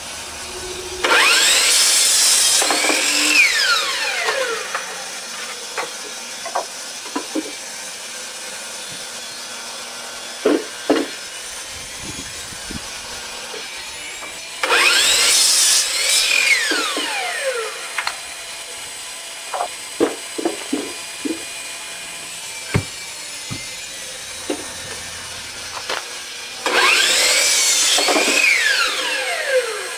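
Power miter saw making three cuts through wooden deck spindles. Each starts suddenly with the motor running and the blade cutting, then fades in a falling whine as the blade spins down. There are light knocks between the cuts.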